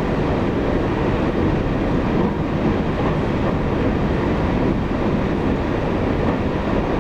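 Taiwan Railways EMU800 electric multiple unit running at speed, heard from inside the car: a steady rumble of wheels on rail with no breaks or changes.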